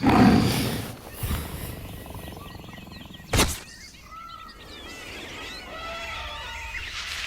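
Birds chirping, a run of short rising and falling calls in the second half, with a dull thud at the start and one sharp click a little past the middle.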